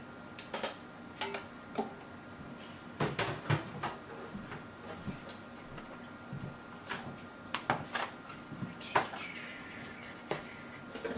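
Scattered knocks and clicks of a computer power supply being handled and set into a PC case, hard plastic and metal bumping, with a short scrape near the end.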